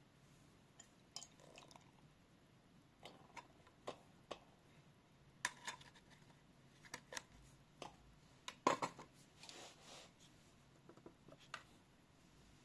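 Scattered light clicks, taps and small clatters of objects being handled, about a dozen of them at uneven intervals. The loudest knock comes about two thirds of the way in, followed by a brief soft rustle.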